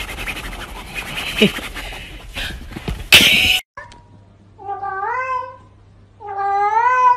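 Noisy scuffling that ends in a loud burst about three seconds in, then a domestic cat meowing twice. Each meow is long, rising and then falling in pitch.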